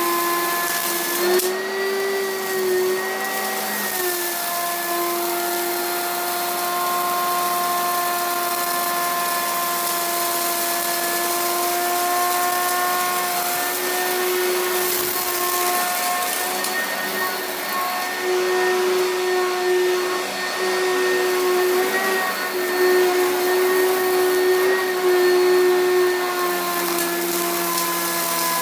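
Upright vacuum cleaner running over carpet strewn with lint clumps and small debris: a steady motor whine over a hiss of rushing air, its pitch shifting slightly now and then as the head moves.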